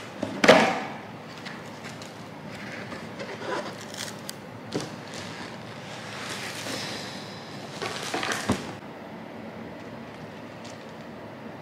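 A cardboard box being handled and opened: a loud bump and rustle about half a second in, scattered knocks and scrapes, and another rustling clatter around eight seconds, then only a steady room hiss.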